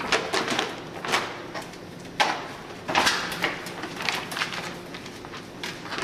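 Pages of a thick paper phone directory being leafed through quickly, a string of short, sharp rustles at irregular intervals, over a faint steady hum.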